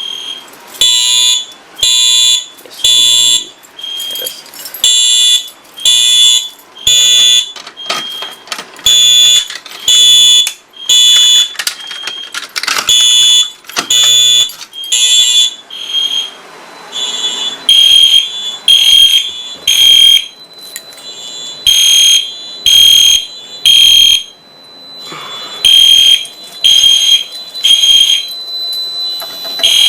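Fire alarm horn-strobes, a Wheelock MT and a System Sensor Genesis, sounding in alarm: loud pulsed horn blasts in groups of three with a short pause between groups, the temporal-three evacuation pattern.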